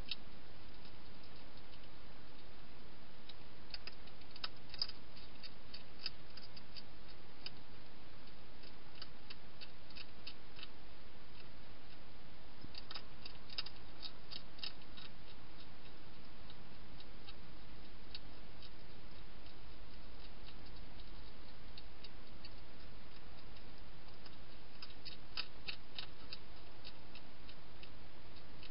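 Hedgehog crunching dry food: clusters of quick, crisp crunching clicks every few seconds, over a steady background hiss.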